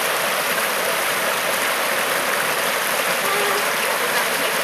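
Shallow creek water running and rippling over a rock ledge, a steady rushing hiss.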